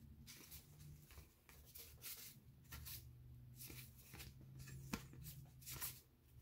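Faint, soft rustling of a stack of baseball cards being thumbed through by hand, each card slid off the front and past the others in light, irregular brushes.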